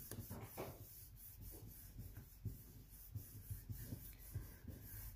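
Faint rubbing of fingers on paper, with small soft rustles: a strip of designer paper is pressed and smoothed down onto an embossed cardstock card front to set the liquid glue.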